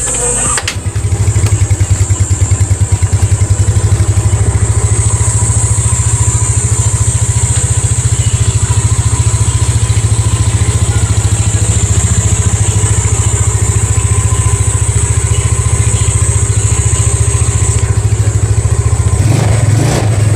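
Yamaha Mio Sporty scooter's single-cylinder four-stroke engine idling steadily with an even pulse, running with its carburetor freshly cleaned.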